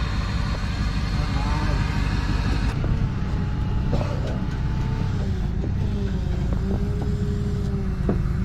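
A pickup truck's engine running under way, a steady low rumble whose pitch slowly rises and falls. The sound changes abruptly about three seconds in.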